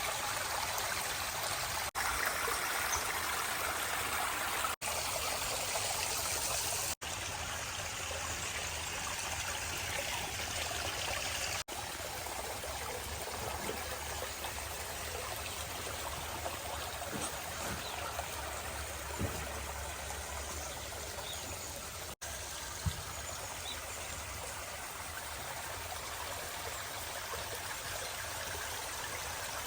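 Water running over natural rock down a pondless stream and waterfall, a steady splashing and trickling that breaks off for an instant five times.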